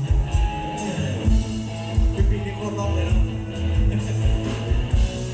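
Live band music with a steady drum beat of about two hits a second under sustained instrumental tones.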